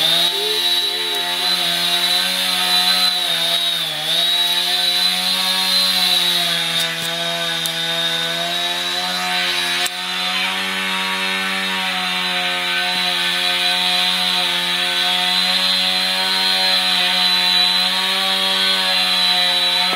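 Husqvarna 455 Rancher two-stroke chainsaw running at full throttle and cutting through a tree trunk. The engine holds a steady high pitch, dipping briefly under load about four seconds in.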